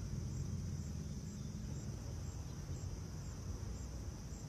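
Insects trilling steadily in a high, even buzz with faint regular pulses about twice a second, over a continuous low rumble.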